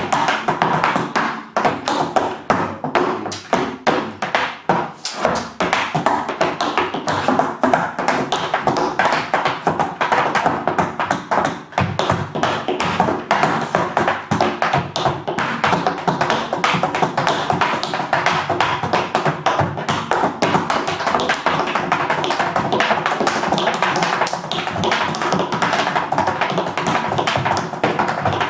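Tap shoes dancing on a wooden tap board: fast, rhythmic metal-plate taps and heel drops. The phrases break up with short gaps in the first dozen seconds or so, then run as a dense, unbroken stream.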